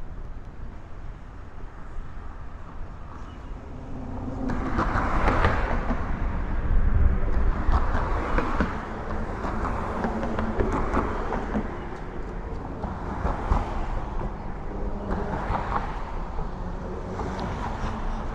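City street traffic passing over a steady low rumble, growing louder about four seconds in and swelling and fading as vehicles go by.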